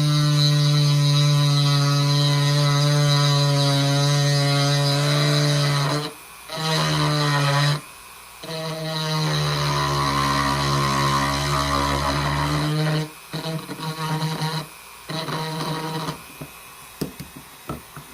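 Small electric power tool running with a steady hum, stopping and restarting several times, and sounding heavier for a couple of seconds partway through as it works the wood. A few short knocks near the end.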